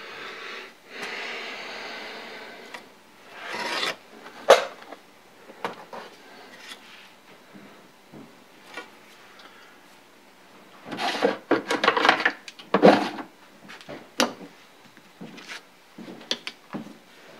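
A black plastic tub of liquid slid along the workbench and set down with a sharp knock, followed about eleven seconds in by a run of quick rubbing strokes and a few light clicks as things are handled on the bench.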